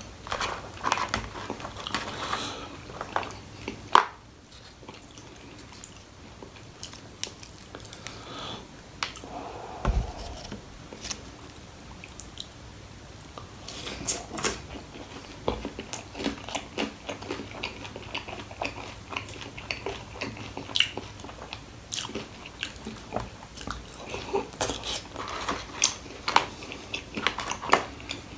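A man biting and chewing fried chicken popcorn and fries, with irregular crunches and wet chewing sounds.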